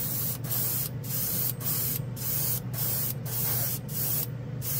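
Gravity-feed airbrush (Badger Patriot 105) spraying thinned KBS Diamond Finish clear coat in short, quick trigger pulses, giving a series of hissing bursts about two a second. A steady low hum from the spray booth fan runs underneath.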